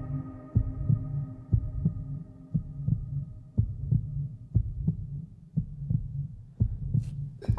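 Slow heartbeat sound effect: a low double thump about once a second, under a held musical drone that fades away over the first few seconds. A few sharp clicks come near the end.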